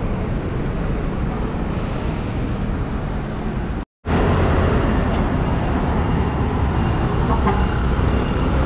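Street traffic noise: a steady hum of passing road vehicles, cut off for a moment about four seconds in, then going on with a louder, deeper rumble.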